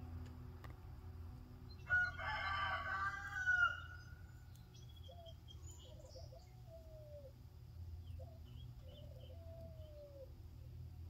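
Chicken calling: one loud, drawn-out call about two seconds in that lasts under two seconds, followed by a run of soft, low calls that each fall in pitch.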